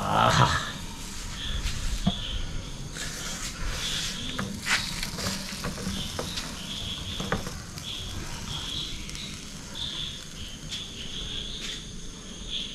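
Crickets chirping in short repeated trills throughout, with a few sharp clicks and knocks of handling mixed in.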